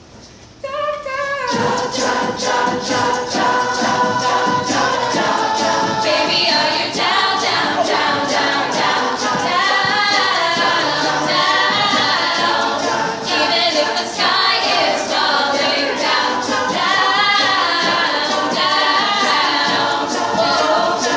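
Collegiate a cappella group singing in close harmony, the voices coming in about a second in, over a steady rhythmic beat.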